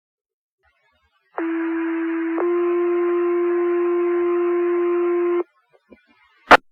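Fire dispatch pager tone over the radio: a steady tone lasting about four seconds that shifts slightly in pitch and gets a little louder after about a second, paging out the volunteer fire station. A sharp radio click comes about a second after the tone ends.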